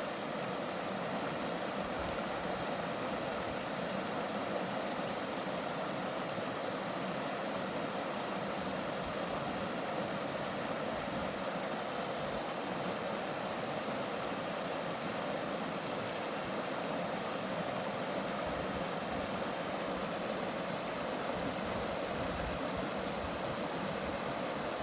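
Mountain valley stream flowing, a steady unbroken rush of water.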